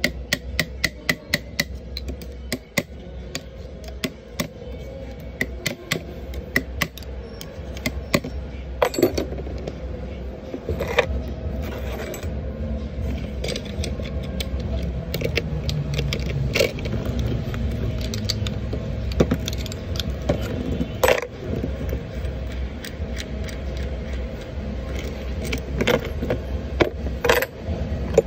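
Metal clicking and clinking from a Piaggio Ape clutch pack being worked with a steel bar and by hand: a quick run of sharp clicks in the first few seconds, then scattered clinks and ringing taps, over a steady low hum.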